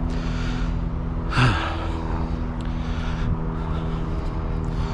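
Diesel truck engine idling steadily, with a short loud hiss about a second and a half in and a smaller one near the end.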